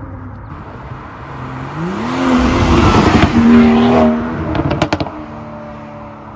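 BMW 440i's turbocharged 3-litre inline-six accelerating past, the engine note rising as it revs, loudest as the car goes by, then fading as it drives away. A few short sharp cracks come about five seconds in.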